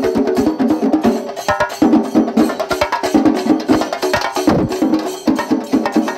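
An ensemble of chenda drums beaten with sticks, playing a fast, driving rhythm of dense, evenly repeated strokes.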